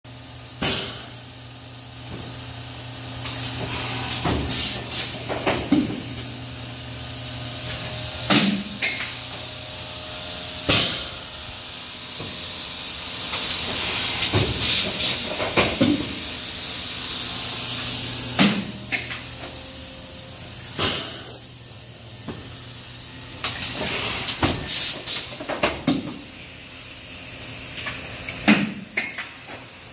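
Industrial plastics-processing machine running with a steady hum. Sharp blasts of hissing air and clanks come every few seconds, with quick runs of several strokes twice.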